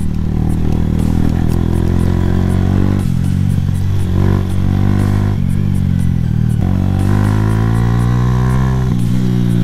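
Suzuki GS 150 SE's single-cylinder four-stroke engine running under way as the motorcycle is ridden along a dirt track. Its note climbs gradually in the second half, then drops suddenly near the end.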